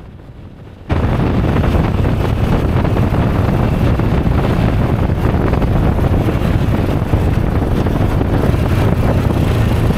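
Motorcycle riding at road speed, with heavy wind rushing over the bike-mounted microphone. It is fairly quiet for the first second, then jumps suddenly to a loud, steady rush that drowns out the engine.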